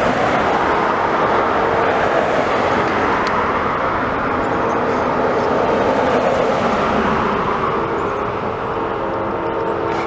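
Amtrak passenger train passing close by: a loud, steady rush and rumble of the cars rolling on the rails, easing off a little near the end.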